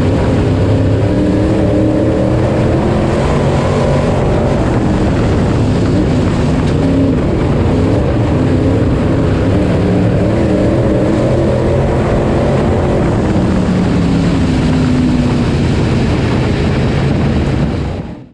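IMCA Modified race car's V8 engine heard from inside the cockpit, running loud, its pitch rising and falling with the throttle. It cuts off suddenly near the end.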